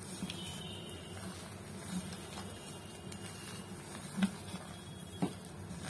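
A bare hand squeezing and mixing thick urad dal batter with chopped onion in a steel bowl: faint squelching, with a couple of soft knocks about four and five seconds in.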